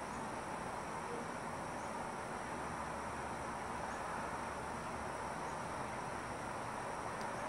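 Steady, even background hiss (room tone) with no distinct sound events.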